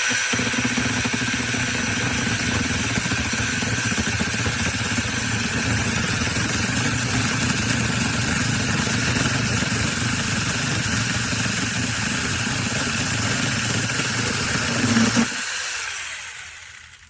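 Battery-powered mini chainsaw with a brushless motor, running steadily at full speed for about fifteen seconds. Near the end it is released and winds down to a stop.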